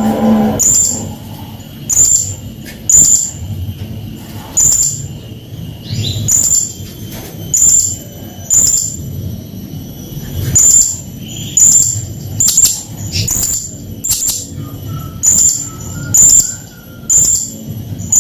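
Serindit hanging parrot calling: a long series of short, sharp, very high-pitched chips, roughly one a second.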